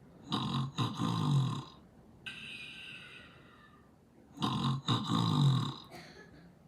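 A person snoring: two loud low snoring breaths in, about four seconds apart, each with a brief catch partway through, and a softer airy breath out between them.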